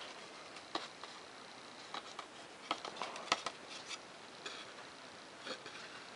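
Foam-board model airplane fuselage being handled over paper plans: scattered light ticks and taps, with the sharpest a little past three seconds in.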